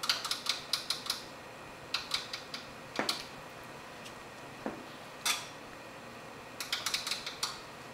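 A paintbrush clicking and clinking against a hard palette as watercolor paint is mixed. There are quick runs of about half a dozen taps at the start, about two seconds in and near the end, with a few single clicks between.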